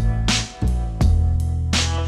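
Background music with held instrument notes and a steady drum beat.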